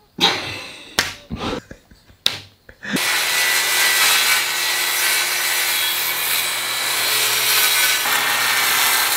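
A few sharp knocks, then about three seconds in a DeWalt circular saw cuts through a plywood sheet with a loud, steady whine that keeps going.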